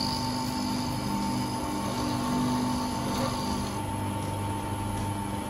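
Electric motor of a small jewellery lathe running steadily while a 1mm 3-line Posalux diamond tool cuts grooves into a spinning ring. A faint high whine stops about two-thirds of the way through, while the steady hum carries on.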